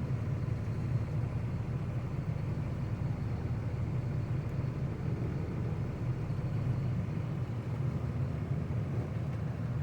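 Truck engine running steadily at low revs while the truck backs up, a constant low rumble.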